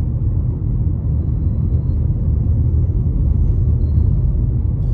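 Steady low rumble of a car being driven, heard from inside the cabin: engine and tyre noise at cruising speed.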